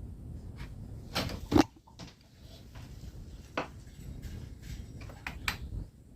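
A few light clicks and knocks of small tools and wires being handled at a workbench during soldering, with about half a dozen sharp taps scattered through.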